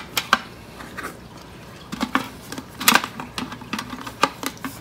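Plastic and metal kitchen-gadget attachments being handled and set into a hard plastic storage tray: a string of sharp clicks and clatters, loudest about three seconds in.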